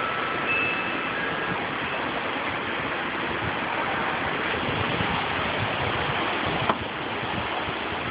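Strong storm wind rushing steadily, with a single sharp knock about six and a half seconds in.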